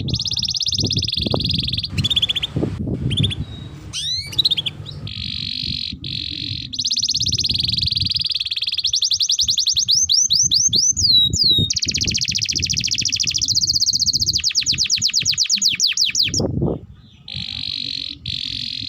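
Domestic canary singing a long, continuous song of fast trills and rolls, with a run of quick rising notes in the middle and a brief pause near the end. A low rumbling noise runs underneath.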